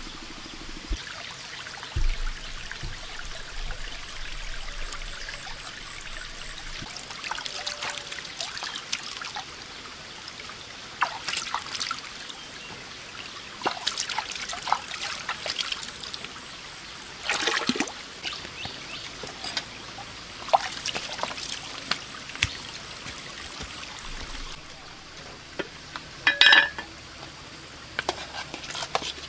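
Shallow stream water trickling, with repeated small splashes as hands wash food in it. A brief ringing clink comes near the end.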